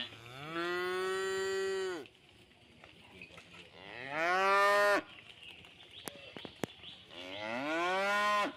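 Domestic cows mooing: three long calls, spaced a couple of seconds apart, each rising in pitch at its start and then held steady before cutting off.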